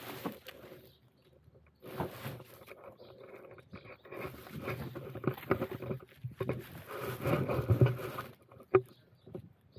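Rubbish being handled during litter picking: irregular rustling and scraping with many small clicks, busiest in the second half, and one sharp click near the end.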